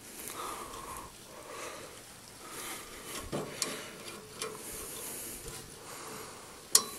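Faint metallic clicks and scrapes as a hand works the ball-joint rod end of a riding mower's linkage, with one sharper click near the end.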